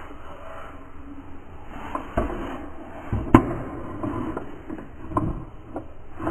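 Small plastic toy car being handled and set down on a hard surface: a few separate sharp plastic knocks, the loudest about three seconds in.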